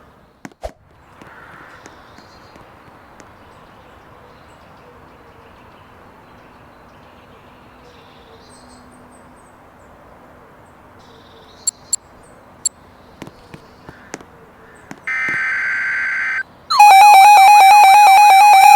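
Emergency Alert System signal in a simulated broadcast. After a faint hiss with a few sharp clicks, a buzzy data burst of about a second and a half sounds about fifteen seconds in: the coded header that opens an alert. Near the end a loud, steady electronic attention tone starts.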